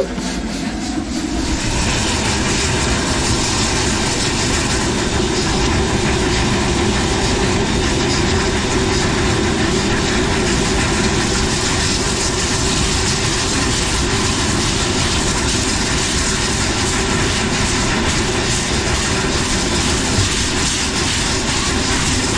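Steam locomotive running along the track, heard from a camera held outside the cab window: a steady, loud rush of running noise with no clear rhythm. It is a little quieter for the first second or two.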